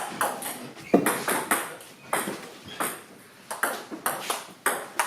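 Table tennis rally: the celluloid ball clicking sharply off bats and table, about two to three hits a second in an uneven rhythm.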